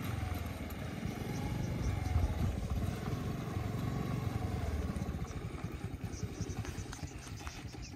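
Motor scooter's small engine running as it rides slowly past over dirt, loudest about two seconds in and fading toward the end.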